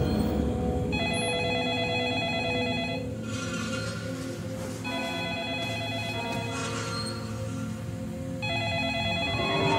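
Telephone ringing three times, each ring a warbling electronic trill about two seconds long, over a low, dark film score. This is the ring that follows the viewing of the cursed videotape.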